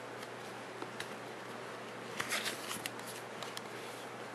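Faint rustling and a few light clicks of a small leather card holder and its paper price tag being handled, mostly in the second half, over a steady low hum.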